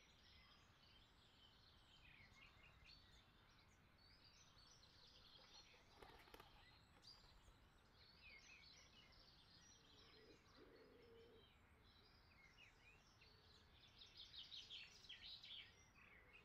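Faint birdsong: scattered short high chirps, a little busier near the end.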